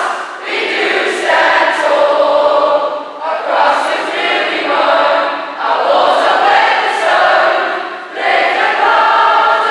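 A large group of students singing the school song in unison, in phrases of a few seconds with brief breaks for breath between them.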